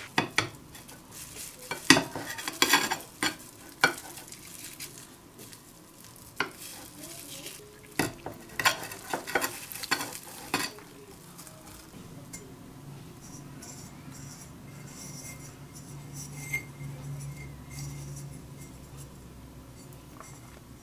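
A plastic knife cutting through a set fruit paste on a plate lined with cling film, with a run of sharp scrapes and clicks against the plate over the first ten seconds or so, then quieter with a faint low hum.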